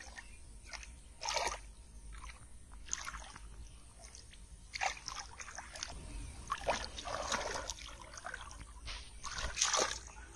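Shallow muddy water splashing and sloshing in short irregular bursts as hands grope through it and legs wade in it.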